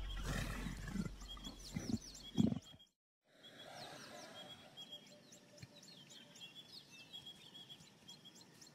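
A leopard growling several times over the first three seconds, then a sudden cut to quieter bush ambience with birds chirping over and over.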